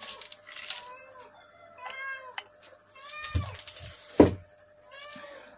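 An animal's short rising-and-falling cries, repeated about eight times, with two knocks a little after halfway, the second one the loudest.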